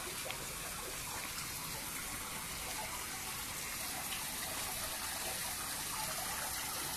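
Steady running water of a fish pond, with a few faint splashes.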